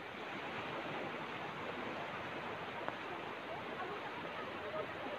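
Small sea waves washing onto a sandy beach: a steady hiss of surf.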